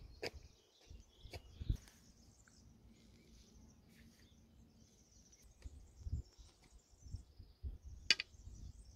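Small birds chirping and singing, with low gusts of wind on the microphone and a few sharp clicks, the loudest about eight seconds in.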